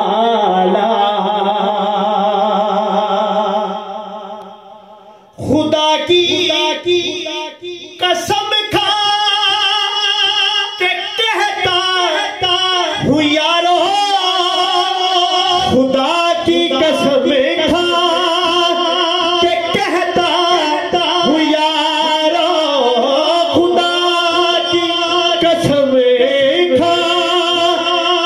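A man singing a naat, an Urdu devotional song in praise of the Prophet, into a handheld microphone. He holds one long wavering note that fades out about four to five seconds in, then starts the next phrases about a second later and keeps singing.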